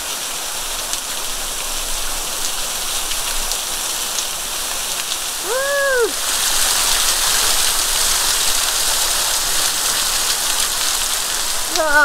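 Waterfall spray falling and splashing steadily, growing louder about halfway through. There is one short call that rises and falls just before it gets louder.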